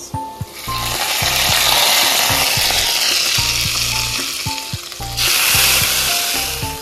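Hot oil tempering (baghar) of browned garlic and crushed red chillies poured onto chicken Manchurian in a pan, sizzling hard. It rises about half a second in, and a second pour about five seconds in brings a fresh burst of sizzle.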